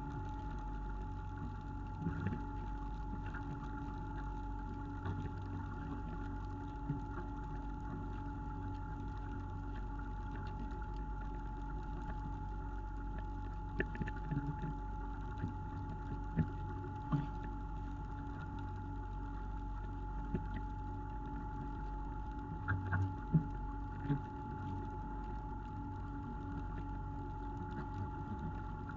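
Fishing boat's engine running at a steady speed, an even hum, with scattered short knocks and thumps on board, loudest around the middle and in the last third.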